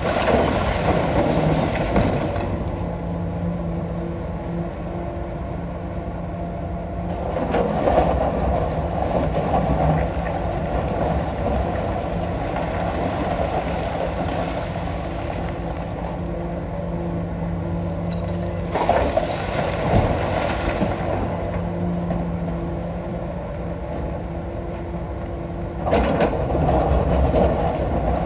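Komatsu PC220-6 excavator's diesel engine running steadily under load, with four louder stretches of scraping, rattling noise of two to three seconds each as the bucket digs and scoops rock.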